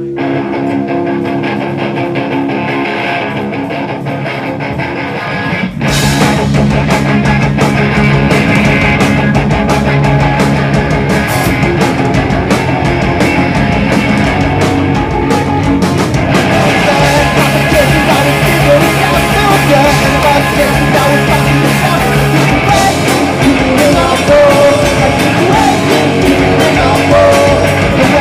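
Punk rock band playing live on amplified electric guitars, bass and drums. A quieter guitar opening with held notes, then the full band with drums comes in loudly about six seconds in.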